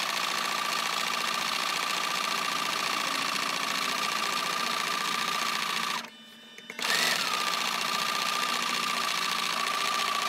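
Electric sewing machine running steadily as it stitches a long seam in fabric, with a steady whine. It stops briefly about six seconds in, then starts up again and runs on.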